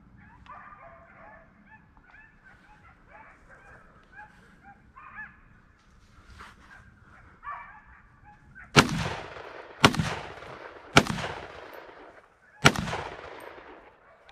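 Shotgun fired four times in quick succession, starting a little past halfway, each blast echoing across open country. Before the shots, hunting dogs bark and bay in the distance.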